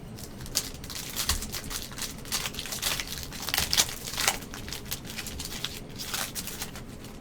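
Crinkling and rustling of plastic trading-card packaging being handled: an irregular string of quick, sharp crackles.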